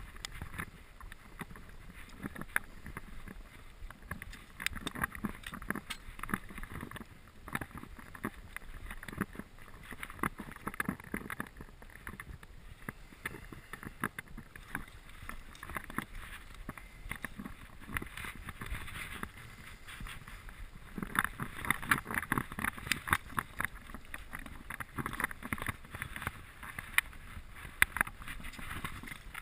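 Water lapping and splashing against shoreline rocks, with many irregular clicks and rustles from handling close to the microphone; it gets louder about three-quarters of the way in.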